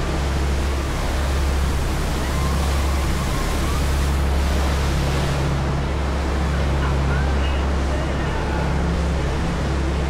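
Passenger ferry underway: a steady low engine drone under the rush of water from its wake and wind on the microphone.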